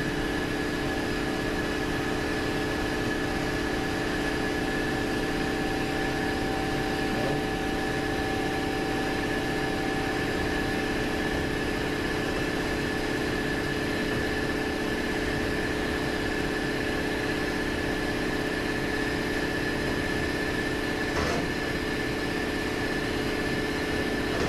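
Steady machine hum holding several fixed tones, unchanging throughout, with a faint click about seven seconds in and another about twenty-one seconds in.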